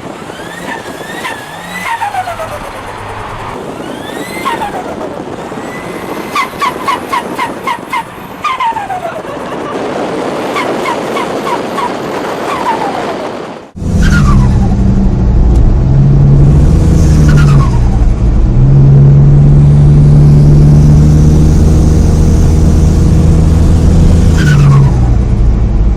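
Turbocharged car engines. In the first half, turbo whistles fall in pitch as the throttle closes, and there is a rapid fluttering chatter: compressor surge on lift-off. After a sudden change about halfway, a loud engine runs steadily, with a few more falling turbo whistles.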